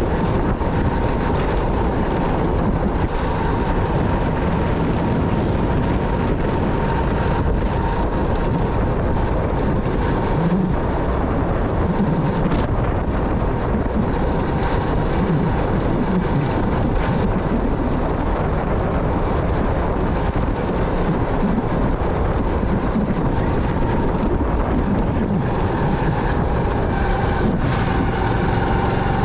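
Motorcycle on the move: steady wind and road noise with the engine running, and a thin, steady whine held throughout, with a second faint tone joining near the end.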